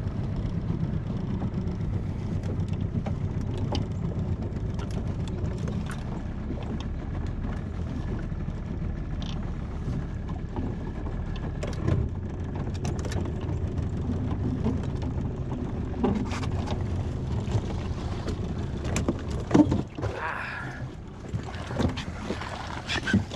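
Small fishing boat's outboard motor running steadily underway. It eases off about twenty seconds in, as the boat comes in to the dock, followed by a few sharp knocks.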